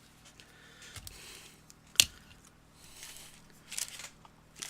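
Light handling noises: soft rustling with a few clicks, the sharpest one about two seconds in and smaller ones near the end.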